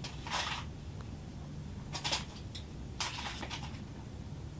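Three short bursts of fabric rustling, near the start, about two seconds in and about three seconds in, over a low steady hum inside an ice-fishing shack.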